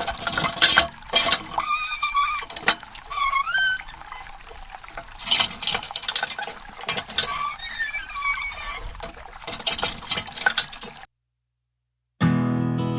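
Water from a mini hand pump splashing and trickling into a small container, with clicks and short squeaky tones; it cuts off suddenly about eleven seconds in.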